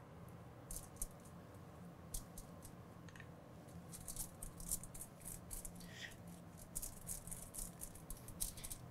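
Pastry brush working oil onto portabella mushroom caps on a foil-lined sheet pan: quiet, irregular light taps and scratchy brush strokes, busier in the second half, over a low steady hum.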